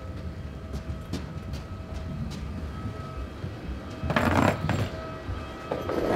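Rolling carry-on suitcase wheels rumbling along a jet bridge floor, with scattered clicks and two louder clatters, about four seconds in and near the end, over a faint steady hum.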